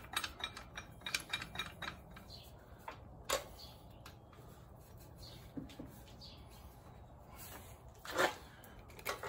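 Socket ratchet clicking in quick short strokes for the first couple of seconds, then scattered metal clinks of hand tools against engine brackets and pulleys, with one louder clank about eight seconds in.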